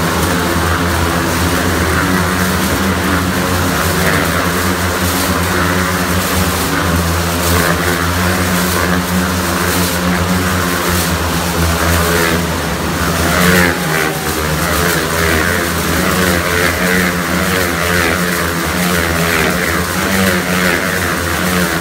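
Four motorcycles circling inside a steel-mesh globe of death, their engines running together as one continuous, overlapping drone.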